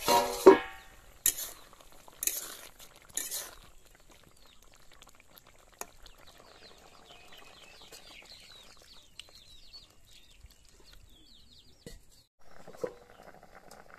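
Loud metallic clatter of the steel plate lid coming off the aluminium wok, then three knocks of a metal spatula against the wok about a second apart as the curry is stirred.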